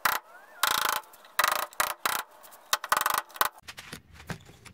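Screwdriver prying an axle seal out of a pickup's rear axle tube: short bursts of metal scraping and clicking, several in the first two seconds, then a run of quicker ticks.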